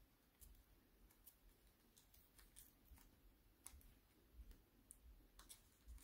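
Faint, irregular crackles and clicks of a paper sheet being folded and creased by hand.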